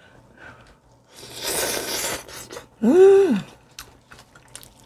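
Eating sounds from gnawing meat off a pork neck bone: about a second of noisy mouth sounds at the meat. Then comes the loudest sound, a short hummed "mmm" of enjoyment that rises and falls in pitch, followed by a few small chewing clicks and more noisy mouth sounds near the end.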